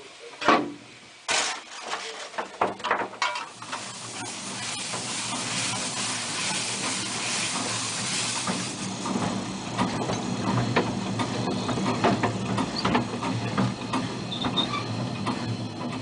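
Narrow-gauge 0-4-0 well-tank steam locomotive Dolgoch heard from its footplate while under way. A few sharp knocks come in the first three seconds, then a steady hiss of steam over the rattle and rumble of the running engine.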